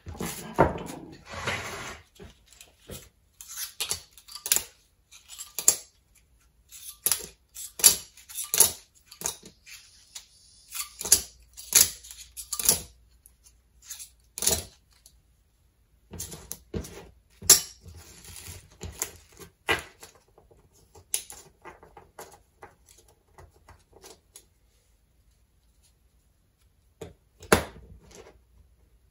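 Small metal capacitor plates and spacer washers clinking and clicking as they are handled and stacked into a home-built variable capacitor. The clicks come in irregular clusters, with a pause of a few seconds near the end.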